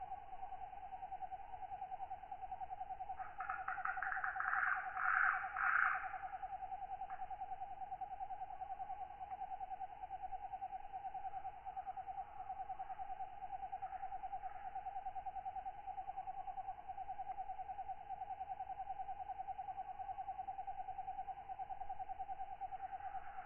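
Katydids and other night insects calling: a steady, rapidly pulsing trill, with louder rasping calls about three to six seconds in and again near the end.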